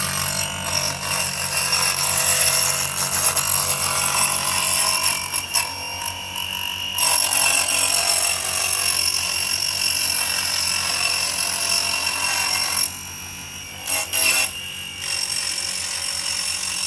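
Small hobby table saw's motor whining steadily at a high pitch as its blade cuts a balsa wood strip, with a short dip in level about thirteen seconds in.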